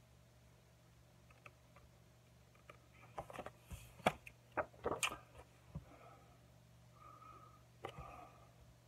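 Hands handling photo prints close to the microphone: a few seconds of quiet, then a cluster of short clicks and rustles as one picture is put down and the next picked up, with one more click near the end. A faint steady low hum runs underneath.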